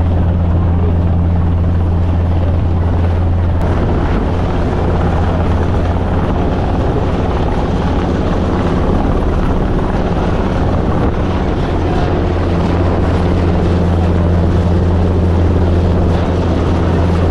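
Rescue helicopter flying close to the ship, its rotors making a steady low drone.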